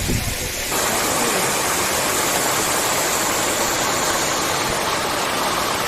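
Waterfall: a loud, steady rush of falling water. Under a second in it starts abruptly, replacing low wind rumble on the microphone.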